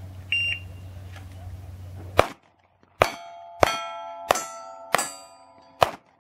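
A shot timer gives one short, high beep, and about two seconds later a pistol fires a rapid string of about six shots. Most shots are followed by the ringing of struck steel plates.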